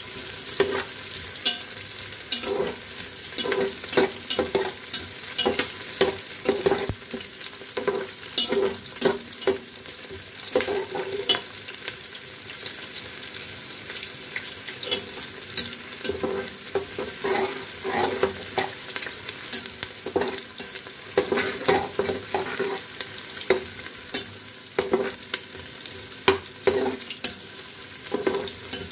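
Sliced onions and whole garlic cloves sizzling in oil in a pressure cooker, frying to a light brown, while a metal spoon stirs them, scraping and clinking against the pot again and again.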